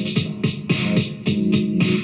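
Electronic background music with a steady beat and a held low note.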